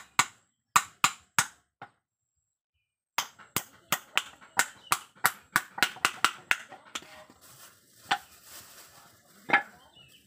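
A small hammer knocking on pieces of teak louver frame set against a wooden block. A few sharp knocks, a brief dead gap, then a quick run of about three knocks a second, and two more spaced knocks near the end.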